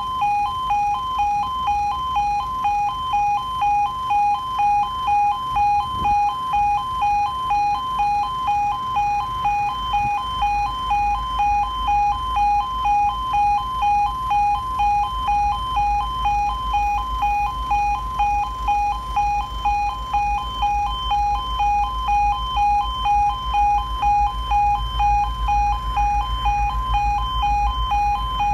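Level crossing warning alarm (the UK two-tone 'yodel' type) sounding continuously as a rapid, even two-note pulse. A low rumble builds underneath from about a third of the way in.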